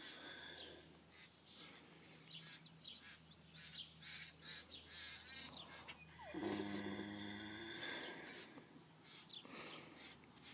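A sleeping horse snoring: one drawn-out, pitched snore about six and a half seconds in, lasting just over a second, with birds chirping throughout.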